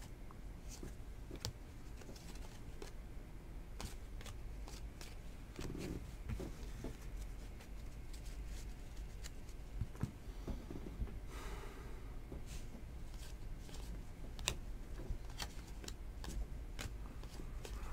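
A stack of Donruss Elite football trading cards being handled: faint, scattered clicks and card-edge rustling as the cards are flipped through and squared up in the hands, with a short burst of rustling a little past halfway.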